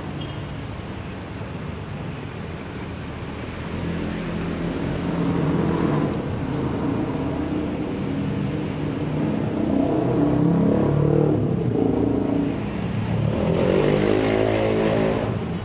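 A motor engine running, growing louder from about four seconds in, with its pitch shifting near the end.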